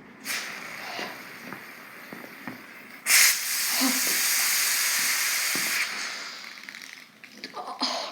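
Shaken Diet Coke bottle being opened: carbonation hisses as the cap is loosened, then about three seconds in there is a sudden loud burst and the gas and foam spray out with a steady loud hiss for nearly three seconds before tapering off.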